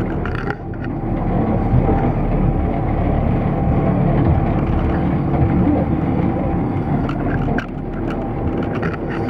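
A small mountain monorail car running steadily along its rail down a steep slope. It makes a continuous mechanical drone with a low hum and a few short clicks and knocks.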